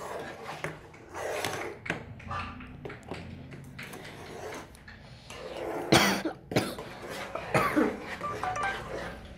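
A person coughing twice in the second half, the first cough the loudest sound, over light knocks and scraping of a spoon stirring a thick mixture in a metal pot.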